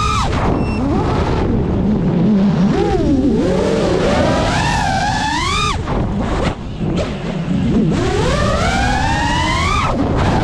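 GEPRC Mark5 FPV quadcopter's motors whining, the pitch rising and falling again and again with throttle over a low rush of prop wash and wind. The whine briefly drops away about six seconds in, then climbs in one long rise and falls off sharply near the end.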